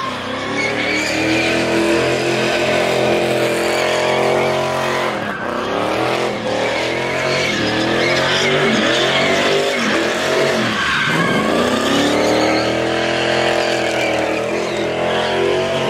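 Car doing donuts: the engine is held at high revs with the tyres spinning and squealing. The revs drop and climb again twice, about five and about eleven seconds in.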